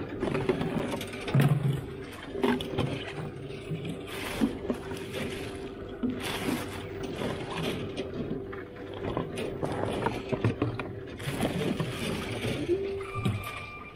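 Black plastic bin bags rustling and plastic PET bottles crinkling and knocking together as they are pulled out by gloved hands. Under it is a steady hum from the bottle-return machine, which rises in pitch near the end, followed by a short electronic tone.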